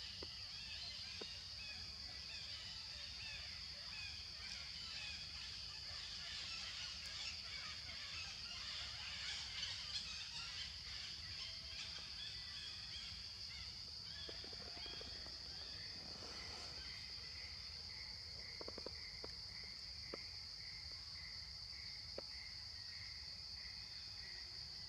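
Outdoor ambience: a steady, high insect drone, with busy bird chirping in the first half and a few faint clicks later on.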